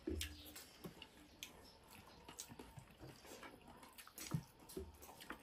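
Faint eating sounds: soft chewing and scattered small clicks and squishes of fingers mixing rice on plates, with a few soft low bumps.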